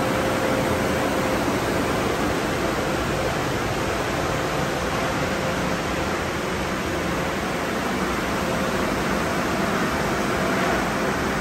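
Steady rushing noise of car wash tunnel equipment running, with a faint steady hum.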